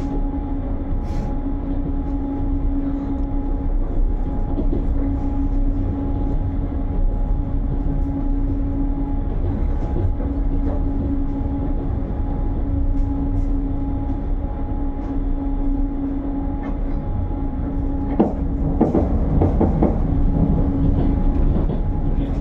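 Long-distance passenger train running along the track, heard from inside the carriage: a steady low rumble with a constant hum over it. A few knocks and clatters come near the end.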